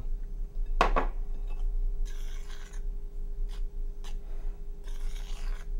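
Metal spoon stirring dry flour and cornmeal in a mixing bowl: scratchy scraping strokes in several separate bursts, after a single sharp knock about a second in.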